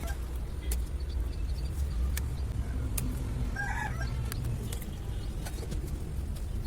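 A steady low rumble with scattered sharp clicks, and one short bird call about three and a half seconds in.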